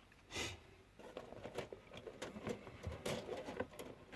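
Plastic miniature sprues being handled and shuffled, with light clicking and crackling and two brief swishes about half a second and three seconds in.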